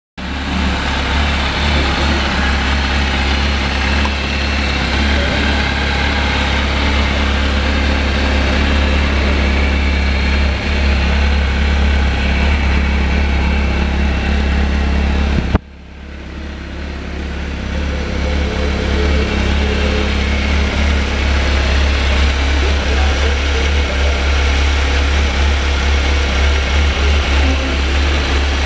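2005 Kawasaki ZR750's inline-four engine idling steadily, with a sudden drop in sound about halfway through that builds back up over a couple of seconds.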